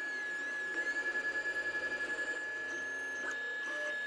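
Anycubic i3 Mega 3D printer at work, its stepper motors whining in rising and falling pitch as the print head moves, over a steady high tone. About a second in, a rapid pulsing runs for about a second and a half.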